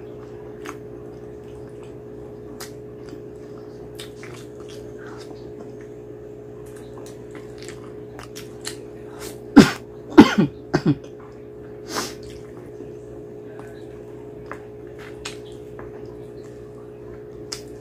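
Close-miked mouth sounds of eating mutton curry and rice by hand: small chewing and lip-smacking clicks, with a burst of four or five loud, wet sucking slurps about ten seconds in as sauce and meat are sucked off a mutton bone. A steady low hum runs underneath.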